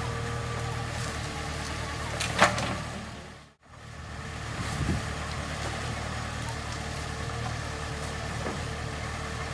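Backhoe loader's diesel engine running steadily, with a sharp knock about two and a half seconds in and a smaller thump about five seconds in. The sound cuts out briefly a little past three and a half seconds, then returns.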